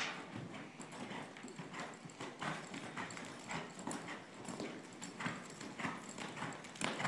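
Hoofbeats of a Quarter Horse gelding moving under a rider over dirt arena footing: a steady run of soft thuds, a few to the second.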